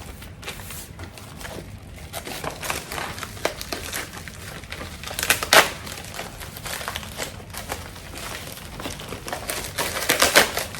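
Paper packaging crinkling and rustling as a package is unwrapped by hand, in irregular crackles with louder bursts about five and a half seconds in and again near the end.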